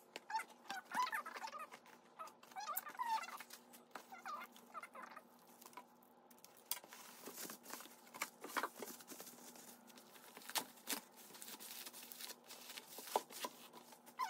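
Handling of a cardboard box: the flaps are opened and bubble-wrapped items are lifted out, giving crinkly rustling and sharp clicks from about five seconds in. Before that, in the first few seconds, come faint bird-like chirping calls.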